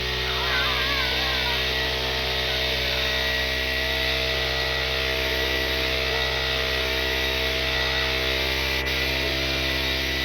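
A motor running steadily, a constant drone of several unchanging tones, with a brief warbling sound about half a second in.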